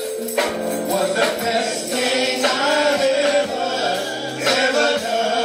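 Gospel music: a male singer with choir-like backing vocals over instrumental accompaniment.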